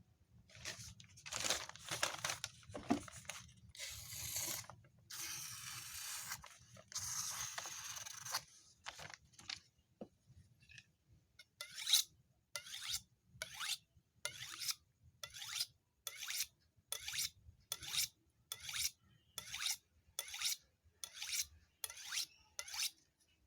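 Knife blade drawn along a 10-inch Waldemar sharpening steel, metal scraping on metal: a few long, slow scrapes first, then quick even strokes about two a second from about halfway on.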